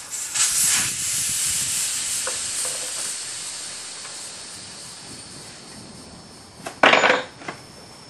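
Air hissing out of a knobby dirt-bike tyre through its open valve as it deflates, starting loud about half a second in and fading slowly over several seconds. Near the end comes one brief, loud noise.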